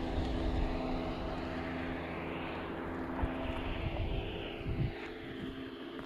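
A steady engine drone: a constant hum with a low, uneven rumble beneath it.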